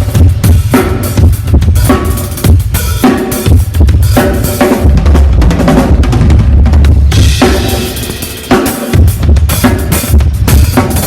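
Drum kit played loud at a sound check, bass drum and snare hits in a dense pattern over a heavy low end, with a short break about eight and a half seconds in.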